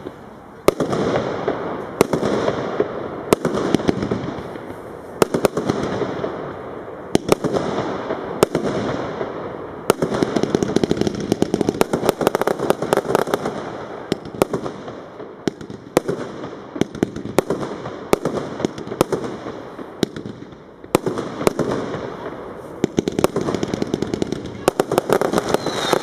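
Consumer firework cake (multi-shot battery) firing. Sharp shots come a little over a second apart, each followed by crackling, with faster volleys of shots around the middle and near the end.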